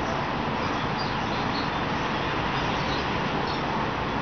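Steady hiss of background noise, with a few faint, short, high chirps from small birds scattered through it.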